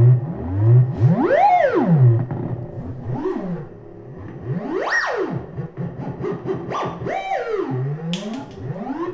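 Synthesizer being played: low pulsing notes about twice a second at first, then tones sweeping up and down in pitch as a knob is turned, with the highest swoop about five seconds in.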